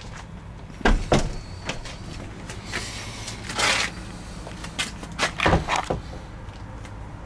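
Footsteps and handling noise moving along a gravel and concrete side passage: a few sharp knocks and scuffs, twice in quick groups, with short crunching or scraping rustles between them, over a faint steady low hum.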